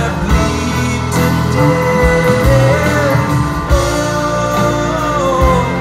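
Live band music, with acoustic guitar and a backing band with strings, and a male voice singing: a held note about two seconds in and a note sliding down near the end.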